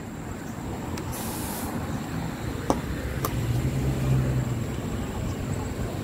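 A car driving along the road close by: engine hum and tyre noise that build to their loudest about four seconds in.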